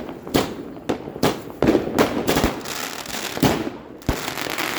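New Year's fireworks and firecrackers going off: a rapid, irregular series of loud, sharp bangs, about a dozen, with crackling in between.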